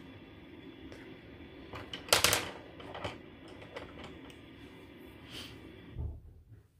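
Prismacolor wooden colored pencils clattering as they are set down on a table, a quick cluster of clicks about two seconds in, then a few lighter taps and a soft thump near the end.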